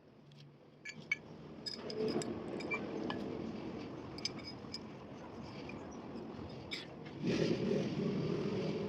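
Metal parts of a hydraulic pump clinking and scraping as they are handled, with scattered sharp clicks over a rustling handling noise that grows louder twice.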